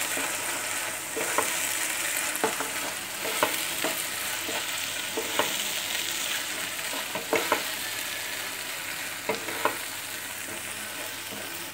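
Sliced onions and capsicum sizzling in hot oil in a kadhai while being stirred with a wooden spatula, which knocks and scrapes against the pan a dozen or so times at uneven intervals.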